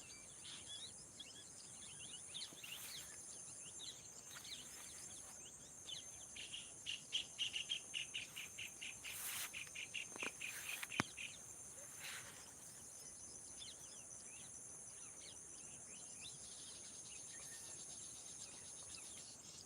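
Birds chirping over a steady, high insect drone, with a fast run of repeated bird notes, about four a second, in the middle.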